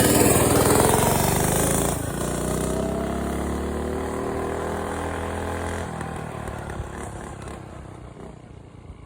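Small engine with its governor removed and a louder aftermarket exhaust, revving hard, then easing to a lower steadier run with its pitch slowly climbing. About six seconds in the low rumble drops away and the sound fades out with a few scattered exhaust pops.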